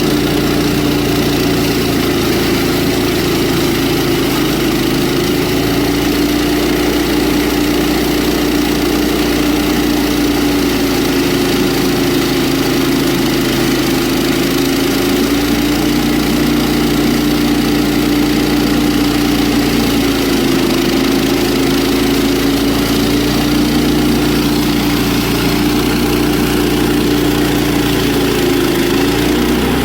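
A sawmill's engine running steadily, its pitch wavering slightly, with a brief dip and recovery near the end.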